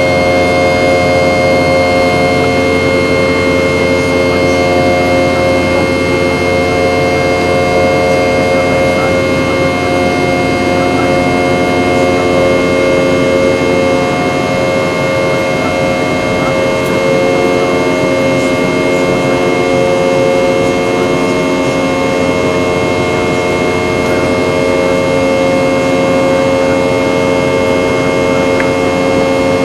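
Boeing 717-200's rear-mounted Rolls-Royce BR715 turbofans running steadily, heard inside the passenger cabin: a loud, even drone with several steady whining tones over it.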